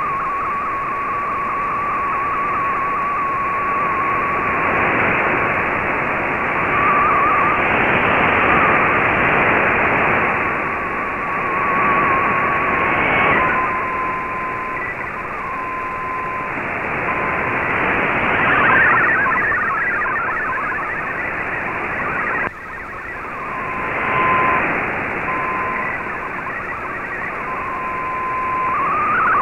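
Icom IC-R8600 shortwave receiver in AM mode playing an MFSK64 digital data broadcast under heavy hiss. A single data tone near 1 kHz wavers and then breaks into short pieces while an MFSK picture comes in, with clusters of fast-changing data tones in between. The hiss swells and sinks every few seconds as the signal fades.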